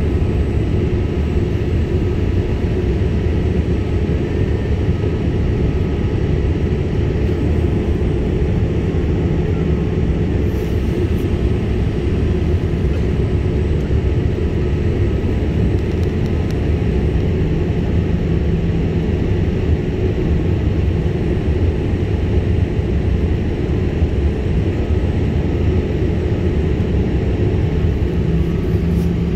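Jet airliner cabin noise heard at a window seat in flight: a steady, loud low rumble of engines and rushing air that holds even throughout.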